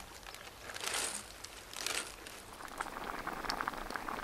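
Pot of pasta water boiling over a campfire, bubbling and popping in a dense run of small ticks from about two-thirds of the way in. Before that come two brief soft rushing noises, about a second apart.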